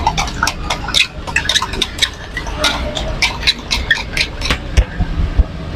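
Quick irregular clicks and taps of topping containers being shaken and knocked over a sweet martabak, over a steady low rumble.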